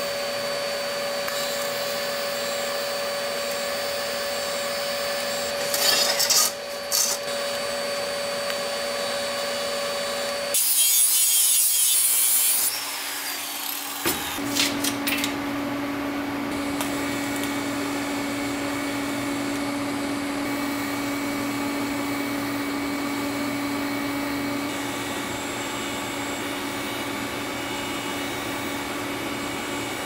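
TIG welding arc on steel, buzzing and hissing steadily, with a louder, higher hiss lasting about two seconds near the middle and a few sharp clicks a little before it.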